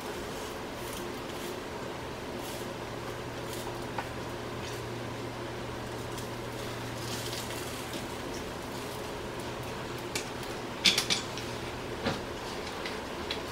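A spatula and fork scraping and tapping lightly in a frying pan over a steady low hum. Near the end comes a short burst of sharp clatters, then one more click.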